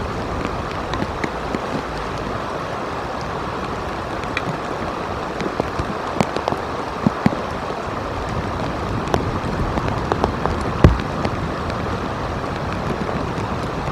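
Rain falling on the eagle nest: a steady hiss of rain with scattered drips tapping close by and one sharper knock about eleven seconds in.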